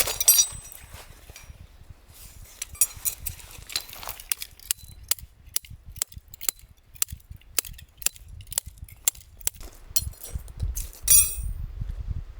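Camping gear being handled in the wind: a run of sharp knocks and clicks, about two a second in the middle, and two ringing metallic clangs, one near the start and one near the end, over a low wind rumble.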